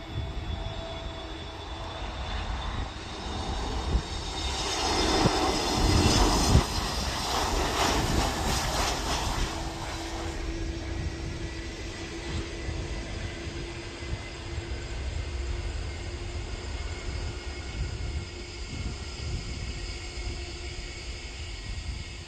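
Airbus A321neo jet airliner with Pratt & Whitney geared turbofan engines landing: engine noise swells to its loudest a few seconds in as the jet passes close, then settles to a steadier, lower engine hum as it rolls out on the runway after touchdown.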